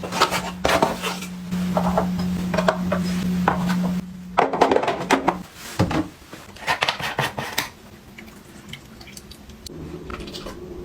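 Containers and small items being handled and set down, making clinks and taps at irregular intervals. Under them runs a steady low hum that stops about halfway through and comes back near the end.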